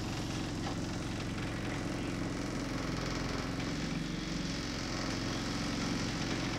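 Bus engine idling and pulling slowly in stop-start traffic, heard from inside the bus as a steady low drone, with a slight shift in its note about four seconds in.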